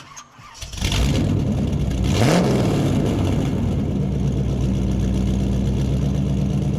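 Car engine cranking and catching, revved briefly about two seconds in, then settling into a steady idle that cuts off suddenly at the end.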